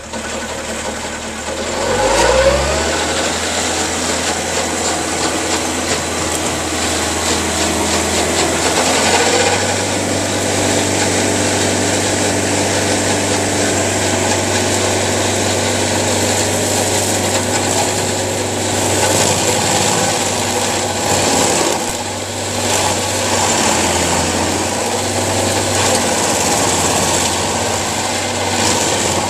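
An engine revs up about two seconds in, then runs steadily at a constant speed with small changes in load.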